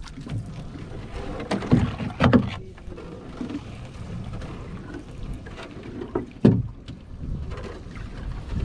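Water splashing and dripping off a nylon fishing net as it is hauled hand over hand into a small boat, over a steady low rumble of water and wind. A few louder splashes or knocks stand out, two close together about two seconds in and one past six seconds.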